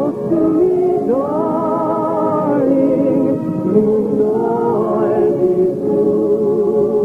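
Music: a voice singing a Scottish love song in long held notes with vibrato, over a sustained accompaniment.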